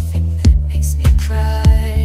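AI-generated song with a steady beat: deep bass, a kick drum about every 0.6 seconds, and high percussion, with a held pitched note coming in about halfway through.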